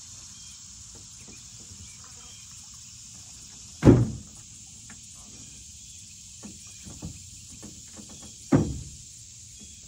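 Steady high buzz of insects, with two loud sharp thumps about four and eight and a half seconds in and a few lighter knocks between them.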